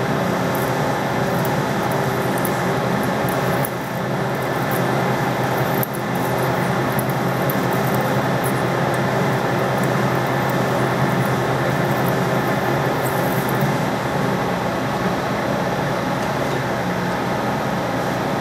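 Metal lathe running while a form tool cuts a concave radius into the spinning workpiece: a steady drone of motor and gearing mixed with cutting noise.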